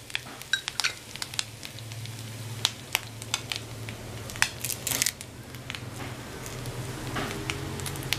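Scattered light crackles and clicks from coconut, dried red chillies and shallots dry-roasting in a kadai, mixed with the rustle and snap of curry leaves being stripped off their stem over the pan. A steady low hum runs underneath.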